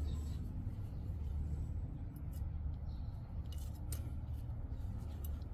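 Small hand weeding tool scratching and scraping into garden soil in several short, separate strokes, over a low steady rumble.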